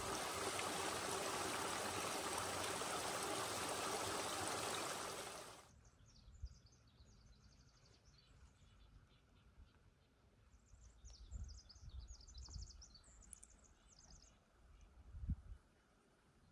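Water of a small mountain creek running over rocks, steady and fairly loud, cutting off suddenly about six seconds in. Then faint high bird trills, each a rapid string of notes, with a few low thumps, the sharpest near the end.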